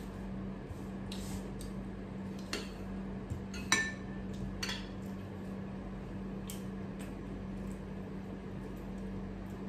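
Eating-by-hand table sounds: a few light clicks and clinks of fingers and dishware as food is picked from a glass bowl and plate. The loudest is a short ringing clink a little under four seconds in, over a steady low hum.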